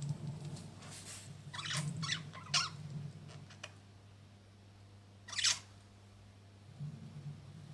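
Budgerigars giving short, sharp chirps: a quick cluster of three or four about two seconds in and a single louder one about five seconds in, over a steady low hum.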